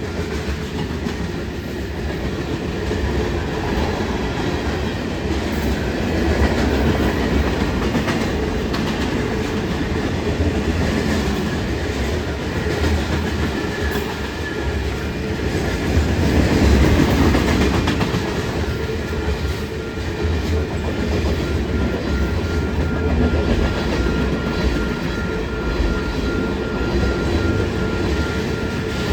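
Union Pacific freight train rolling past at a crossing: a steady rumble of railcars with wheels clacking over the rail joints.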